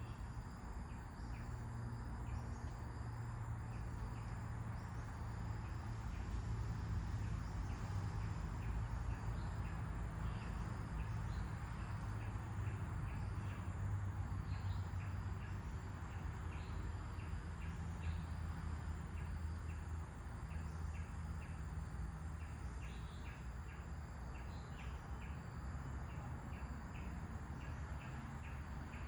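Nature ambience: a steady rush of wind, with birds chirping in short notes repeated several times a second and a steady high trill of insects behind them.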